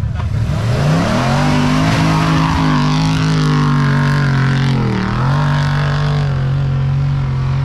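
Jeep engine revving hard under load as it claws up a loose sand hill, wheels spinning. The revs climb about a second in, hold high, sag briefly near five seconds, then pick up again.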